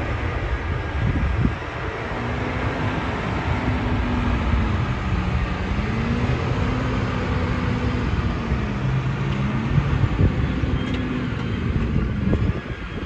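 Claas Axion 930 tractor's six-cylinder diesel engine running hard under the load of a mounted reversible plough, a deep steady rumble. Its note dips and recovers a couple of times as the plough pulls on the engine.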